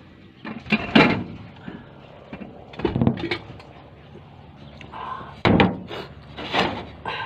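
A few dull knocks and bumps, about four of them, spaced a second or two apart.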